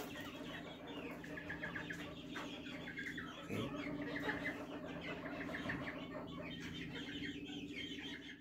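Chickens clucking steadily, many birds calling over one another at a fairly low level.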